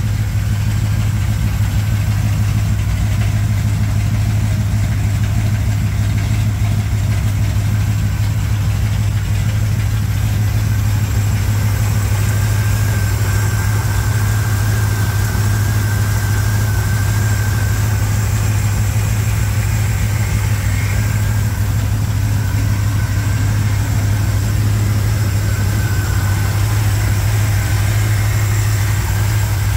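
Chevrolet small-block V8 in a 1987 Chevrolet K10 idling steadily, running on new head gaskets that replace a blown one.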